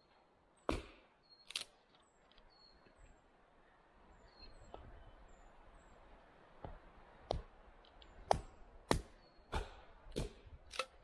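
Hatchet chopping sticks of firewood propped against a fallen log used as a chopping block: two sharp strikes about a second in, then a run of about seven strikes, one every half to one second, in the second half.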